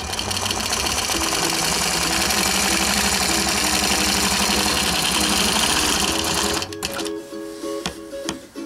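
Quilting machine running fast as it stitches. It stops about two thirds of the way through.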